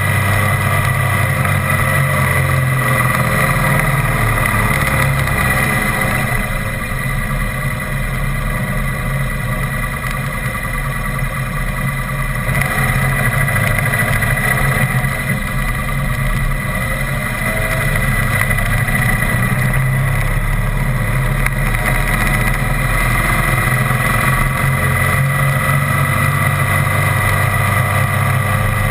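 The engine of the vehicle carrying the camera runs steadily with road and wind noise. For a stretch a few seconds in it drops to a quieter, lower hum, then picks up again.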